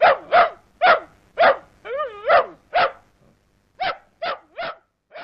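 A dog barking: about ten short barks at roughly half-second intervals, with one drawn-out wavering whine about two seconds in. The barks grow quieter toward the end.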